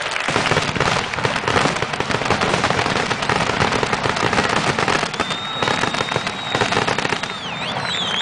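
Aerial fireworks display: a dense, continuous crackle and banging of bursting shells and stars. A steady high whistle joins about five seconds in, and wavering whistles follow near the end.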